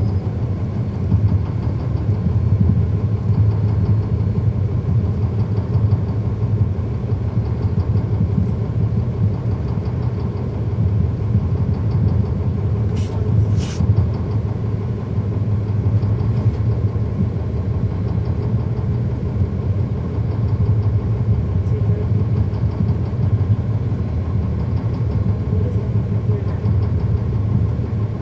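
The Cummins ISL9 diesel engine of a 2010 NABI 40-foot suburban transit bus running at a steady, even pitch, heard from inside the bus. Two brief high hisses come about halfway through.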